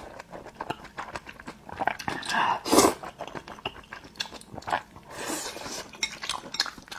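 A person slurping and chewing a mouthful of thick, saucy stir-fried rice noodles close to the microphone. Wet mouth clicks run throughout, broken by a few louder slurps.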